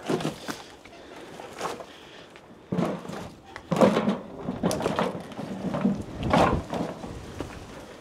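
Irregular knocks, thuds and scrapes of someone moving on foot through clutter and debris, several louder knocks in the middle few seconds.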